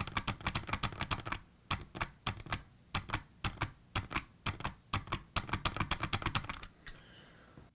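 Rapid, irregular clicking in clusters, several clicks a second, from the small plastic parts of a 1983 Kenner Knight 2000 Voice Car's talking mechanism being turned and pressed by hand. The clicking stops about seven seconds in.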